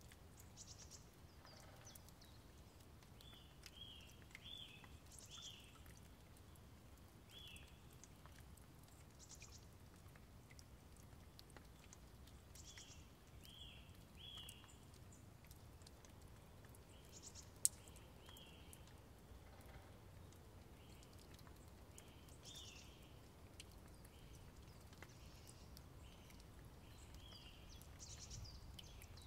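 Faint outdoor ambience: a bird's short chirps, repeated in small clusters throughout, over a low steady rumble, with one sharp click a little past halfway.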